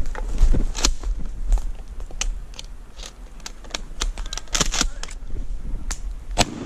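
Footsteps crunching through a thin layer of snow over dry leaves and brush, with irregular crackles and twig snaps and branches brushing past.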